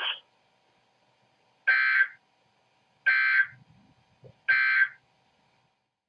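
Emergency Alert System end-of-message signal: three short bursts of warbling digital data tones, each about half a second long, spaced about a second and a half apart, marking the end of the alert broadcast.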